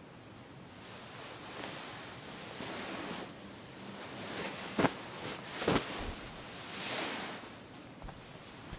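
Foley rustling and swishing that swells and fades several times, with two sharp knocks about five and six seconds in.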